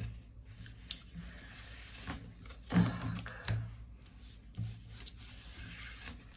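Tarot cards being turned over and handled: a few soft clicks and rustles of card against card and table.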